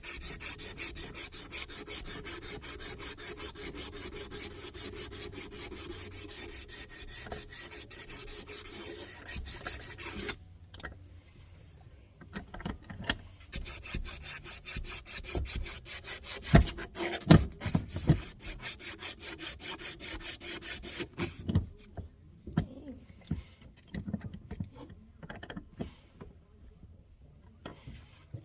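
Hand sanding: quick, even back-and-forth strokes of sandpaper smoothing a tractor part. The strokes stop about ten seconds in, followed by a few sharp knocks and then fainter, scattered rubbing.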